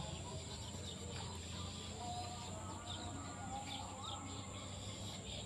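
Outdoor ambience: a steady high insect drone with short, quick bird chirps scattered throughout.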